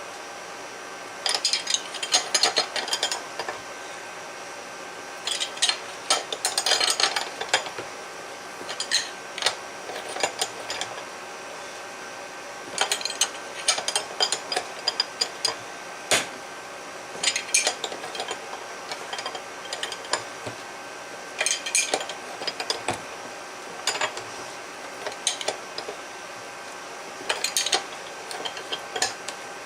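Ratchet wrench clicking in short bursts every few seconds as it turns the forcing screw of a puller that is straining to press a tight pitman arm off a steering gearbox shaft. There is a single sharp click about 16 seconds in.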